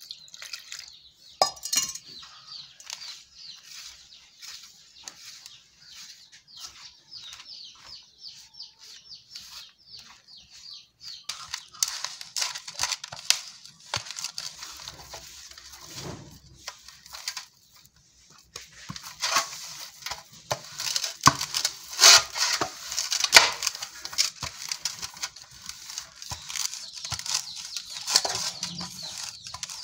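Pearl-millet (bajra) flour being mixed and kneaded by hand into dough in a metal pan, water poured onto the flour at the start. A steady run of short strokes and clinks against the pan, louder from about eleven seconds in.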